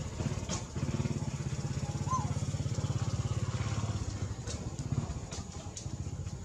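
A small engine running with a fast, even chug, swelling about a second in and easing off after about four and a half seconds. A brief high chirp sounds about two seconds in, and there are a few light clicks near the end.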